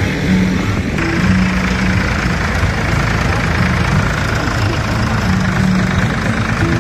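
Vintage Zetor tractor's diesel engine running at a low, steady speed as the tractor drives slowly past.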